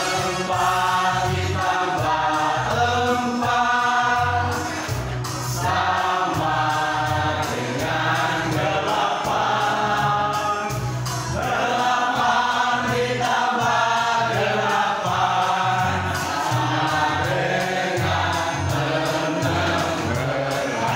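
Several voices singing a song together over music with a low rhythmic beat: an action song for an ice-breaker game.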